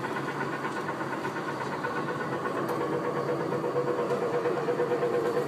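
Children's track-ride tractor's motor running steadily as it drives along the track, a steady hum that gets a little stronger after about three seconds.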